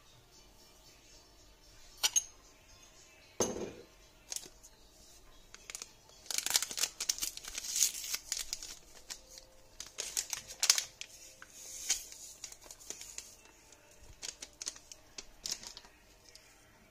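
A paper sachet of vanilla sugar being torn open and crinkled between the fingers, crackling on and off for several seconds. A few clicks and a single knock come before it, about two and three and a half seconds in.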